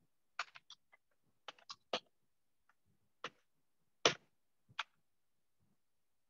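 Computer keyboard typing: about a dozen irregular key clicks, the loudest about four seconds in.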